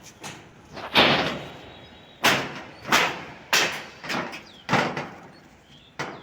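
A series of about seven loud bangs at uneven intervals, each dying away quickly, like heavy pieces being struck or set down hard.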